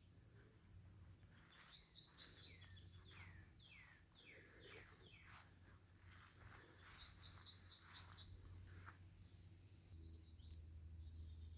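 Faint wild birdsong: a string of short down-slurred whistled notes and two quick runs of high chirps, over a steady high-pitched insect trill.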